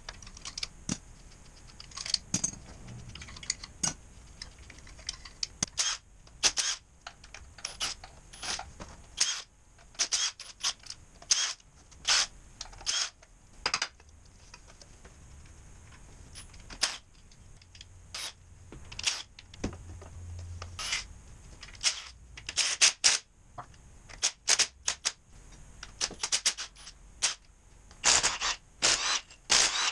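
Wrench and ratchet clicks and metal-on-metal clinks as bolts are undone on an engine. Near the end come short rattling bursts of a cordless power tool.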